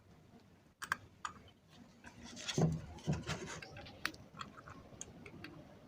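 Light clicks and taps with a louder scraping rub about two and a half seconds in, from a new amplifier IC being handled and fitted into a home-theatre amplifier circuit board.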